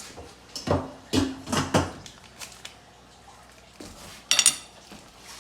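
Dishes and cutlery clattering: four knocks in the first two seconds, then a short ringing clink about four and a half seconds in.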